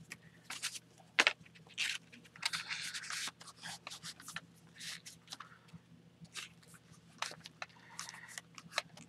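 Paper sticker sheets and journal pages rustling and scraping as they are flipped through and handled, in a string of short, irregular rustles with a sharper tap about a second in.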